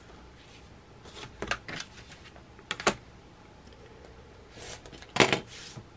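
Rotary cutter trimming through foundation paper and fabric along an acrylic ruler on a cutting mat: a few faint scratchy cuts and clicks, the loudest about five seconds in.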